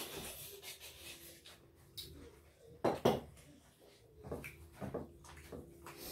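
Eating at a table by hand: fingers working rice on metal plates with small clicks and scrapes, and two sharp knocks close together about three seconds in as a small bowl is set down on the wooden table.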